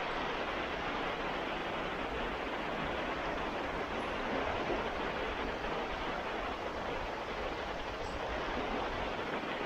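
Baltic Sea surf washing ashore in a steady, unbroken rush of noise, with no separate wave crashes standing out.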